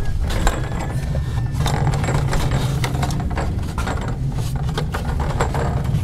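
Dual action pump running in a cistern during a test: a steady low rumble with irregular mechanical clicks and knocks over it.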